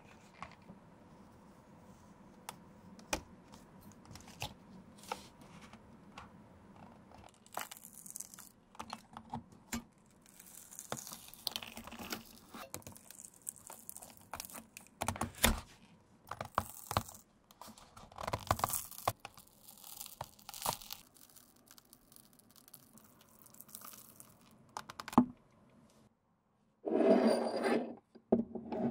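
A worn rubber outsole being gripped with pliers and torn away from the bottom of a leather ballet flat: a run of irregular ripping, peeling and scraping noises with sharp clicks. Near the end, after a brief silence, comes a short louder rasping noise.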